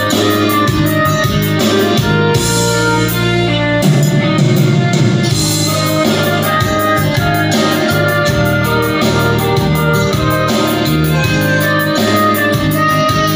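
Band music with guitar and drums played loud with a steady beat through a DB Audio 502 amplifier driving a subwoofer and a mid-high speaker, as a soundcheck of the amplifier.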